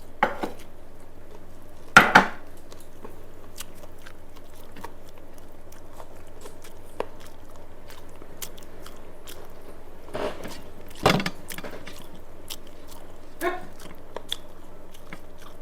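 A person eating rice close to the microphone: chewing and wet mouth sounds with scattered small clicks, and a few louder smacks, the loudest about two seconds in and another about eleven seconds in.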